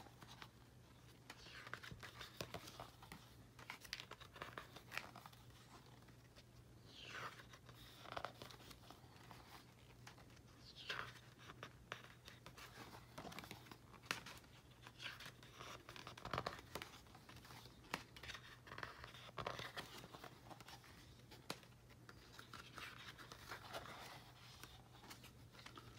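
Faint rustles and swishes of thick paper pages being turned in a hardbound scrapbook, every few seconds, over a faint steady low hum.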